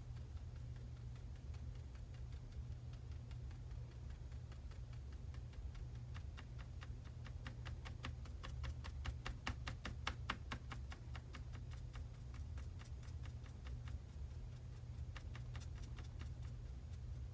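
Half-inch mop brush lightly tapping acrylic paint onto a canvas panel, a rapid run of soft ticks about five a second, loudest around the middle, over a low steady hum. The nearly dry brush is stippling black and green together to blur them.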